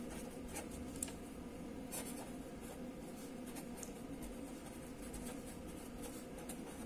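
Felt-tip marker writing by hand on paper: faint, irregular scratching strokes of handwriting, with a light tap about a second in.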